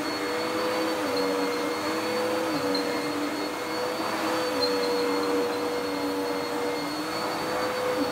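Dirt Devil PowerMax Pet vacuum cleaner (model UD70167) running steadily while vacuuming a carpet, a continuous whirring hum. The lower motor tone dips slightly in pitch a few times.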